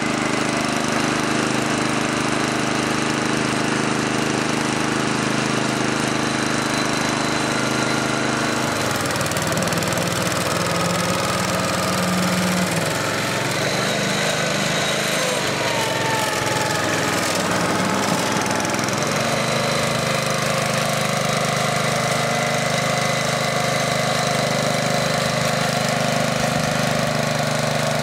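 Small engine of a BLOTTER water-removal machine running steadily. Its note changes between about nine and nineteen seconds in, with a brief gliding whine near the middle, then settles back to the earlier steady running.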